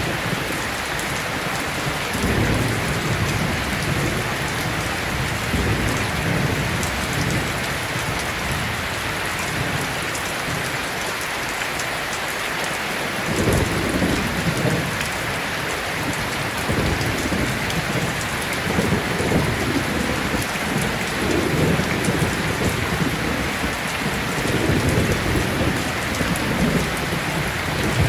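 Heavy rain falling steadily, with low rolling thunder that rumbles again and again, more often in the second half.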